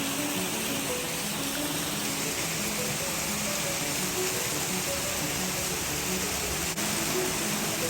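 Waterfall rushing: a steady, even hiss of falling water, with soft music faintly underneath.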